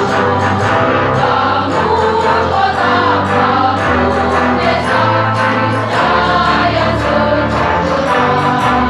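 Women's choir singing a march, many voices together in sustained notes, over a low accompaniment whose bass notes change about once a second.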